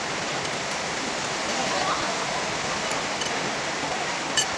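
Steady rainfall heard from under a roof: a dense, even hiss, with one sharp click near the end.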